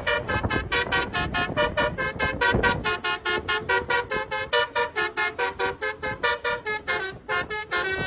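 Indonesian bus 'telolet' multi-tone horn of the basuri type playing a fast melody: a quick string of short toots, several a second, stepping between pitches. A low rumble sits underneath for the first few seconds.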